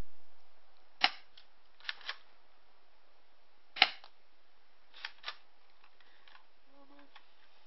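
G21 airsoft gun firing single shots: a series of sharp snapping pops at irregular intervals, several in quick pairs, the loudest about four seconds in.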